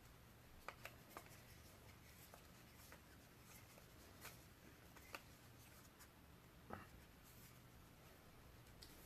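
Near silence: faint room hum, broken by about half a dozen soft clicks and taps of hands handling a small camera and its mini tripod as it is mounted.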